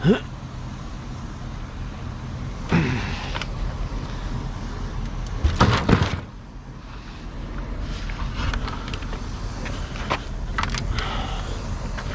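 Scrap being unloaded and handled: scraping, sliding and clanking, with the loudest clatter about six seconds in and lighter knocks near the end, over a steady low hum.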